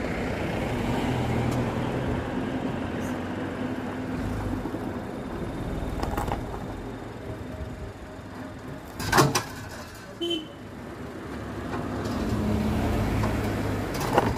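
Tata Nexon's engine running and revving under load as the car pushes against a steel crash-barrier rail, swelling louder twice. A single sharp bang about nine seconds in.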